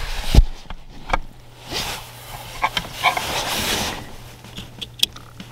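Hands working plastic wiring connectors under a car's dashboard. There is a dull thump about half a second in, a few small sharp clicks and a stretch of rustling as the throttle pedal plug and the Pedal Commander harness are handled.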